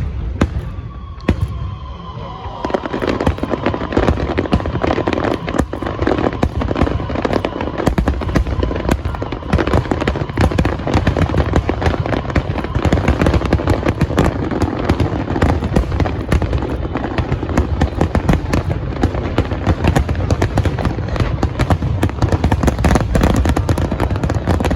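Fireworks finale: a few separate bangs and a falling whistle, then from about two seconds in a dense, continuous barrage of bangs and crackling shells.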